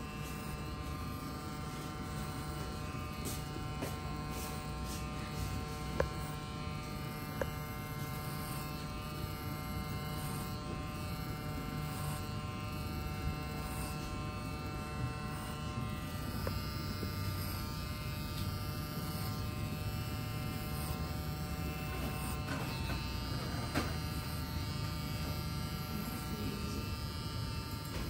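Electric hair clippers buzzing steadily, with a few brief faint clicks.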